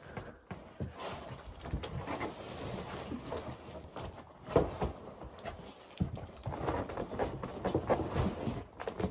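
Cardboard box and packing being handled and shifted: irregular rustling with scattered knocks and thumps as the boxed animatronic is worked out of its carton.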